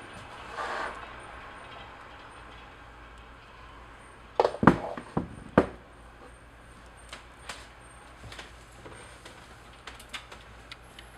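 A quick cluster of four or five sharp knocks or clatters about four and a half seconds in, over a faint steady background hum, with a few softer ticks afterwards.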